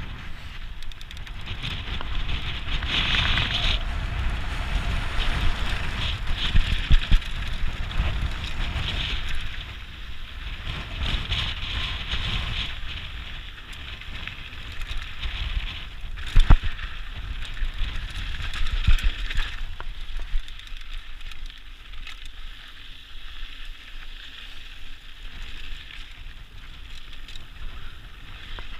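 Mountain bike rolling along a dirt singletrack: tyre noise on the dirt with the bike rattling over bumps, and wind rumbling on the microphone. One sharp knock about sixteen seconds in; quieter in the last third.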